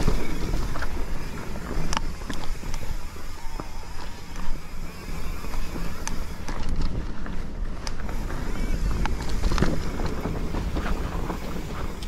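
Mountain bike riding down a dirt singletrack: a steady rumble of tyres on dirt and wind on the microphone, with a few sharp clicks and rattles from the bike over bumps.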